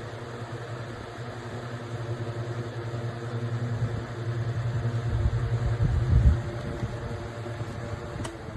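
Electric twin window fan running steadily, its motor giving a low hum. The sound grows louder over the first six seconds, a low rumble swells for about a second and a half past the middle, then it settles, with a faint click near the end.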